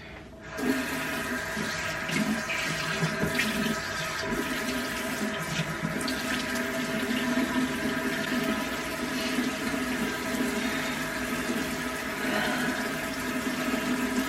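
Bathroom sink tap running steadily into the basin while a face is washed, starting about half a second in.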